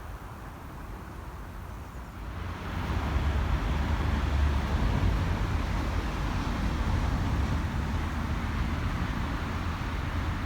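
Car on the move: engine and road rumble that grows louder about two and a half seconds in, then holds steady.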